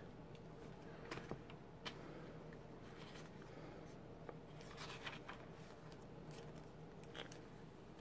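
Faint handling of paper and a pen writing on a card, heard as a scatter of soft scratches and taps.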